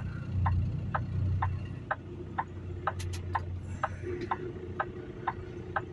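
A semi truck's flasher clicking in the cab at an even pace of about two clicks a second, over the low hum of the idling diesel engine.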